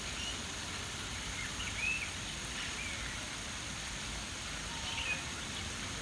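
Water running over rocks in a small stream, a steady hiss, with short high bird chirps here and there, the loudest about two seconds in and again near five seconds.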